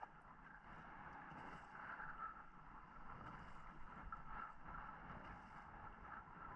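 Near silence: a faint, steady hiss of wind and sea around a drifting boat, with a few faint ticks.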